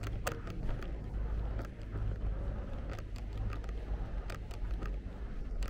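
Street ambience: a steady low rumble with scattered sharp taps and clicks at irregular intervals.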